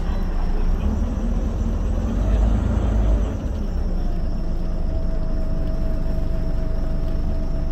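Scania OmniCity double-decker bus under way, heard from the upper deck: a heavy low rumble of engine and road noise that eases slightly about three seconds in, after which a steady whine joins it.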